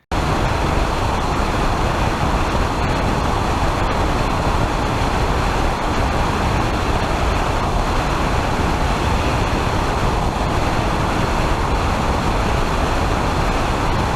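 Steady road and wind noise of a car driving, loud and even, starting suddenly as if cut in.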